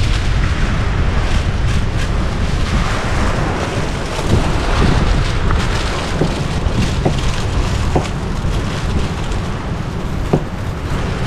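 Wind buffeting the microphone in a steady low rumble, over an even rushing hiss.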